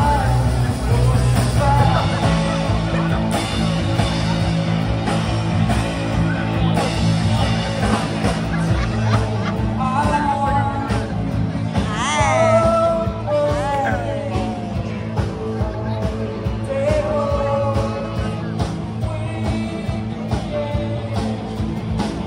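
Live rock band playing with a singer, steady bass and drums under the melody, and a run of sliding notes about twelve seconds in.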